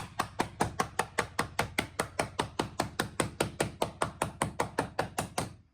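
Rapid, even tapping, about five knocks a second, as the last interlocking PVC floor tile is hammered into place; the tapping stops shortly before the end.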